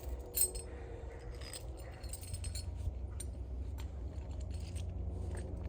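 Steel dog chain links and a bull snap clinking and jangling as they are handled, with one sharper metallic clink about half a second in, over a low steady hum.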